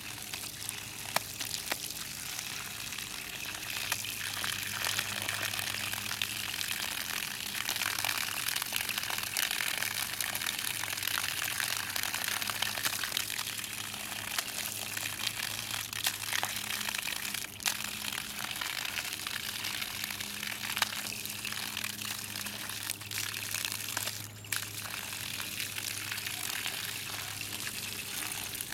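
Water from a garden hose pouring in a steady stream and splattering onto grass.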